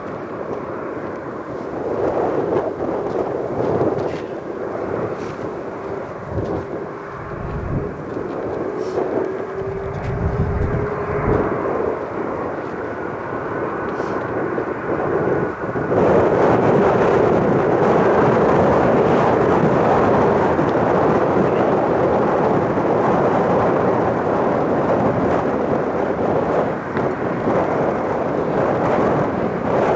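Jet airliner on final approach passing low overhead, its engine noise building with a faint falling whine, then jumping suddenly about halfway through to a loud, steady rush. A few deep thumps of wind buffet the microphone in the first half.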